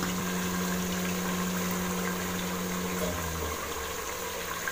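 Mutton and potato curry frying in oil in an aluminium pot, the thick masala bubbling and sizzling as a wooden spatula stirs it during the bhunao stage. A steady low hum runs underneath and stops about three seconds in.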